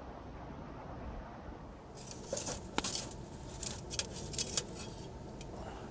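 Light clicks and rustles of small objects being handled: a cluster of short, sharp sounds starting about two seconds in, over a low steady hiss.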